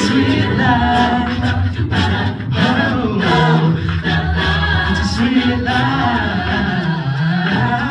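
Mixed-voice a cappella group singing into microphones, a male soloist leading over the backing voices.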